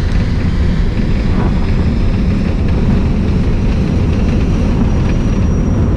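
Loud steady road and wind roar of a Tesla Model S Plaid running down a quarter-mile drag strip at speed, with a faint high-pitched whine joining about halfway through.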